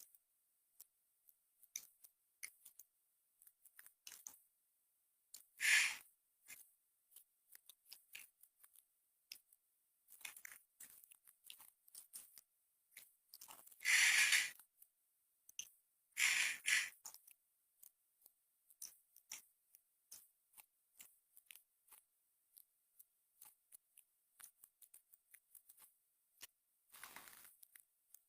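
Sparse soft clicks and crunching noises like chewing, with four louder rustling bursts; the loudest comes about halfway through.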